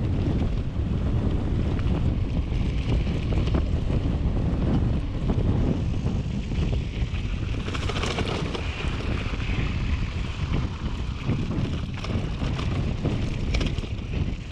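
Wind buffeting the microphone of a mountain bike descending fast on a dirt fire road, over the rolling rumble of the knobby tyres on packed dirt, with scattered clicks and rattles from the bike.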